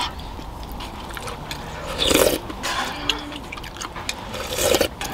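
A person slurping ramen broth from a spoon out of a metal camping pot: two short slurps about two and a half seconds apart, over a low steady hum.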